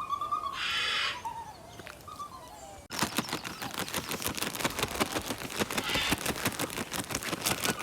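A puppy whimpering with thin, wavering high cries, joined briefly by a short hiss. After a sudden cut about three seconds in, a dense, rapid patter of clicks and crackles takes over.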